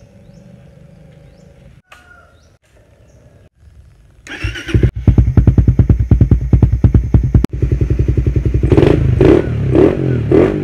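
Suzuki Raider 150 Fi's single-cylinder engine starts about four seconds in and idles with a fast, even putter. Near the end it is revved in four quick throttle blips.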